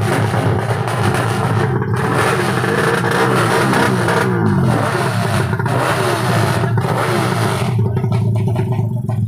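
Tuned four-stroke underbone drag-bike engines running hard at high revs, the pitch rising and breaking off briefly several times. Near the end the engine sound gives way to a steady pulsing beat.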